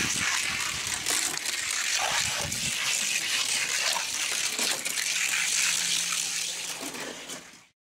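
Die-cast toy cars rolling down gravity race track: a steady rushing hiss of metal-axled wheels on plastic track, cutting off abruptly near the end.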